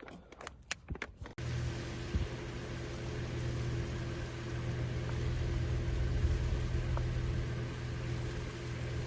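A few sharp clicks or knocks, then, after an abrupt cut, a steady low mechanical rumble with a constant hum.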